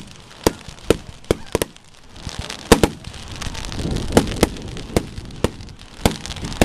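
Aerial fireworks shells bursting overhead in a quick series of about a dozen sharp bangs, some in close pairs, with a low rumble swelling around the middle.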